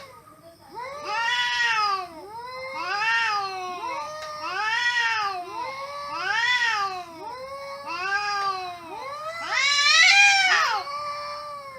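A cat meowing over and over, drawn-out meows that rise and fall in pitch, about one every second and a half, the loudest one near the end.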